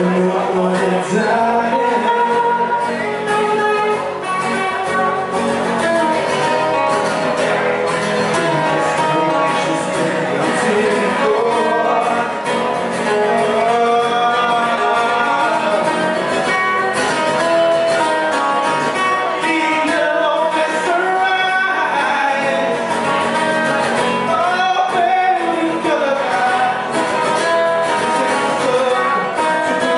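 Live rock song performed by a male singer over guitar accompaniment, with the sung melody and strummed chords continuing steadily.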